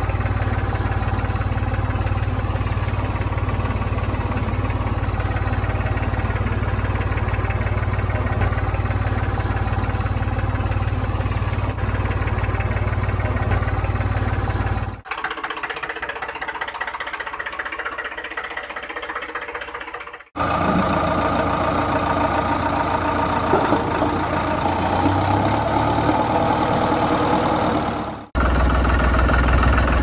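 Tractor engine running steadily, a deep knocking drone, cutting abruptly to a thinner, quieter engine sound about halfway through, then to other engine sounds a few seconds later and again near the end.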